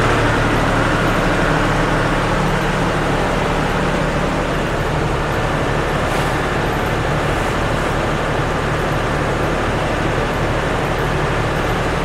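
GEA vertical feed mixer running steadily with a constant low hum, mixing silage with cattle-feed pellets. A sack of feed is tipped into the tub about halfway through.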